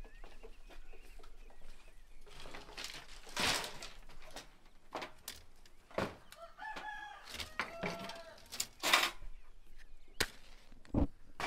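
Chickens clucking, a run of short calls in the middle, over loud crackling rustles and snaps of dry brushwood twigs being handled, with scattered sharp clicks.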